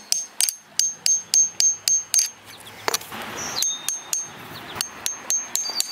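Light hammer taps on a metal chisel splitting shale, about three to four a second, each with a short high metallic ring. The tapping breaks off with a short rough noise about halfway through, then starts again.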